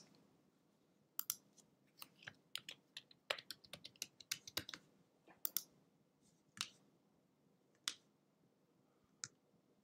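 Faint keystrokes on a computer keyboard as a password is typed: irregular clicks, bunched together in the middle, then a few single spaced-out clicks.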